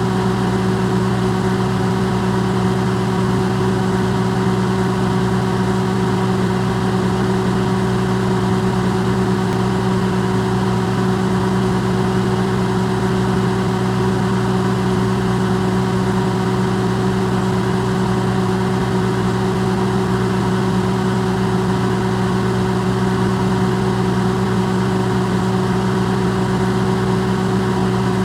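Electrolux microwave oven running, recorded amplified: a steady, unchanging hum and whir.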